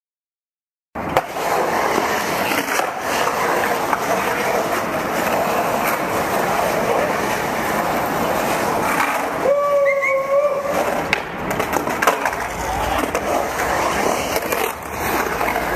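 Skateboard wheels rolling over a concrete bowl, starting about a second in as a steady, rough rolling noise with scattered clacks from the board. About ten seconds in there is a short pitched tone.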